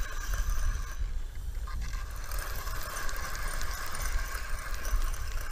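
Spinning reel being cranked steadily to bring in a small catfish on the line, with wind buffeting the microphone.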